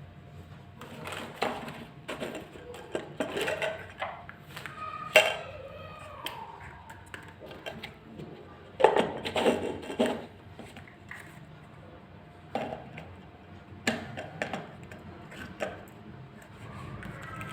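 Plastic parts and packaging of a steam inhaler being handled: irregular clicks, knocks and light rattles, with a few sharper knocks about five and nine seconds in.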